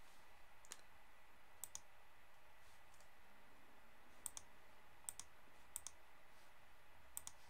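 Faint clicks of a computer mouse and keyboard, mostly in close pairs, about every second or so, over quiet hiss.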